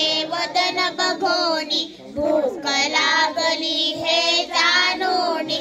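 A child singing a Marathi song into a microphone, amplified over a PA, with a short break about two seconds in.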